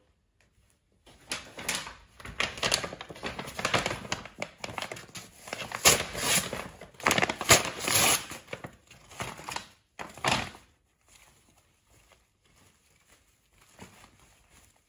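Brown paper mailer bag crinkling and rustling in irregular bursts as hands open it and pull out clothing, stopping about ten seconds in with only a few faint ticks after.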